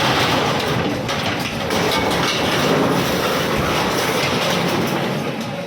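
Bulldozer at work: a heavy engine running under dense, continuous clattering and rattling.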